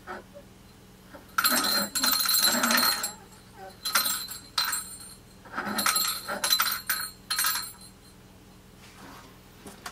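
Metallic clinking and jingling in several bursts over about six seconds, starting a little over a second in.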